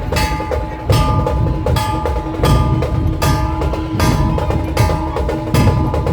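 Dhol-tasha ensemble drumming: deep dhol beats land a little more often than once a second under rapid, sharp tasha strokes, with a steady metallic ringing on top.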